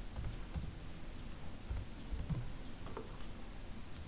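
A few faint, scattered keystrokes on a computer keyboard as a number is typed in.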